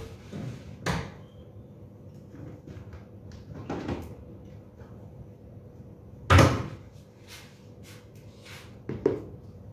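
Kitchen wall-cabinet doors and plastic storage containers being handled, heard as a few separate knocks and bumps. The loudest knock comes about six seconds in, after the open cabinet has been shut.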